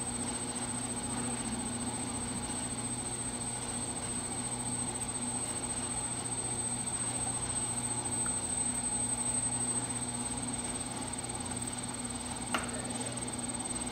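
Electric potter's wheel running at steady speed, a constant hum with a faint high whine, while wet clay is centered on the spinning wheel head under both hands. A single short click near the end.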